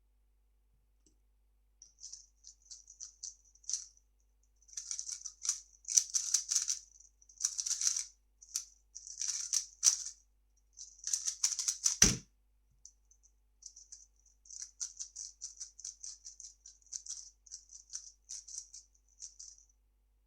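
3x3 speedcube being turned fast, layers clicking and rattling in quick bursts with short pauses. A single solid thud about twelve seconds in, then more bursts of turning.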